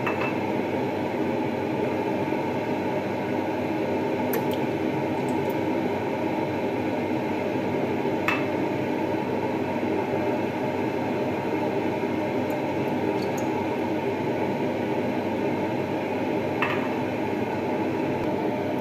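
A steady low droning noise, like a running fan, with a few light clicks about four, eight and seventeen seconds in.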